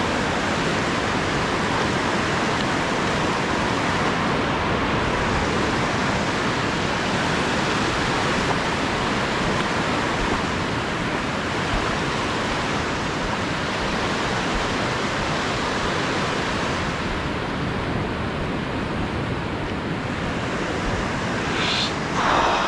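Steady rush of surf washing up a sandy beach, mixed with wind. A brief louder sound stands out just before the end.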